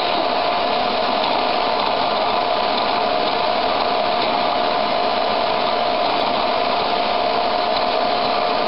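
Vacuum cleaner motor running steadily, with a constant whine over a loud rush of air.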